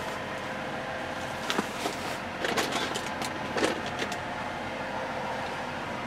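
Steady machine hum with a faint even tone, broken by a few light knocks and rustles of things being handled while a small part is searched for.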